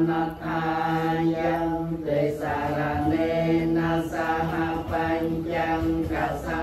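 Buddhist paritta chanting: low male voices reciting the protective verses together in a steady, level monotone, syllable after syllable without pause.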